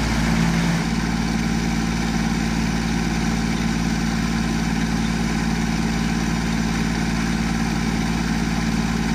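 Kubota compact tractor's diesel engine running at a steady speed as it drives a PTO post hole auger boring into hard clay.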